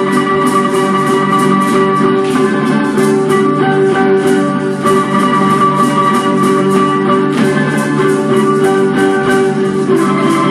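Guitar-led folk dance music with a steady strummed beat.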